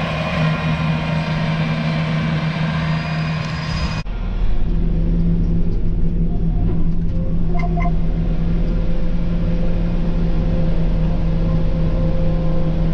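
Farm tractor engine running steadily under load while mowing hay. About four seconds in the sound cuts to a heavier, lower rumble with a steady droning tone.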